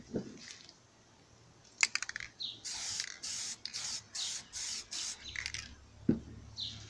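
Aerosol spray paint can sprayed in about six short hissing bursts, after a few quick clicks.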